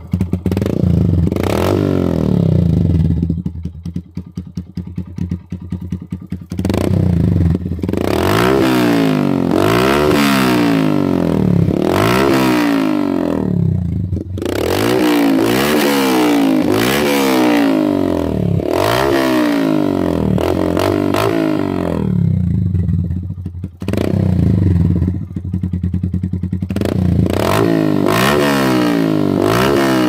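Motorcycle engine running through an Akrapovic-replica slip-on silencer with its dB killer removed, so the exhaust is unbaffled. It idles and is revved over and over in quick throttle blips, about one a second, with short spells of idle between.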